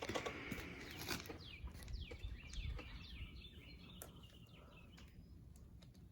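A bird calling faintly, a quick run of short falling chirps a second or two in, over scattered light clicks and knocks.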